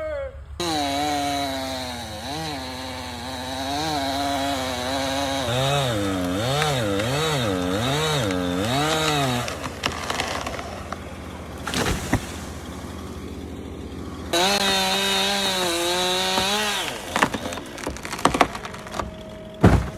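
Two-stroke chainsaw cutting, its engine pitch rising and falling with the load for about nine seconds. After a pause with a few sharp knocks, it runs again briefly from about 14 to 17 seconds.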